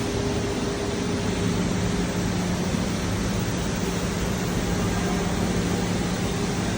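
SCM Accord 30 fxm CNC router running: a steady rushing machine noise with a constant low hum and a higher steady tone above it.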